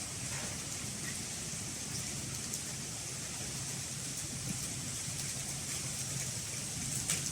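Steady wind rustling through the leaves of a narra tree, a hiss much like rain, with a low rumble beneath and a few light clicks near the end.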